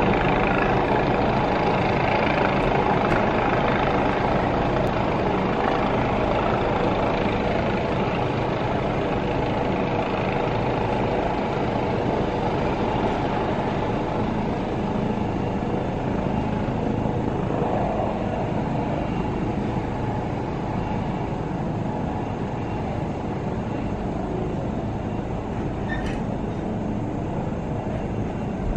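Helicopter coming in to land out of sight: steady rotor and engine noise, slowly growing fainter as it descends.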